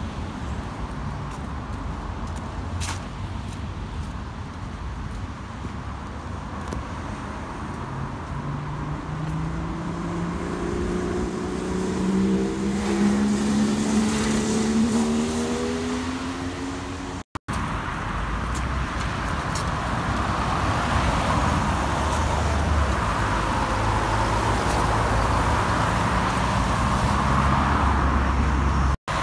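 Road traffic on a busy roundabout: steady engine and tyre noise, with one vehicle accelerating away in the middle, its engine note rising over several seconds. After a brief dropout the traffic noise grows louder, with a steady rush of tyres.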